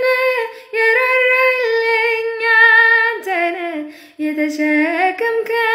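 A woman singing an Amharic Protestant worship song (mezmur) unaccompanied, holding long notes with a slight waver. She breaks for short breaths about half a second in and again about four seconds in.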